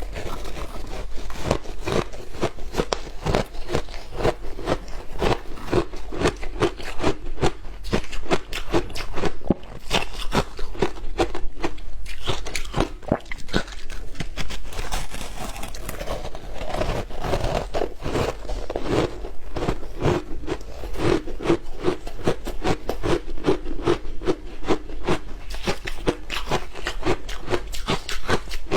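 Frozen matcha ice being bitten and chewed: a steady run of crisp crunches, several a second.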